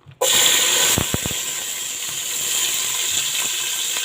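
Onions added to hot vegetable oil in a pot, starting to sizzle all at once and then frying steadily, with a few knocks against the pot about a second in.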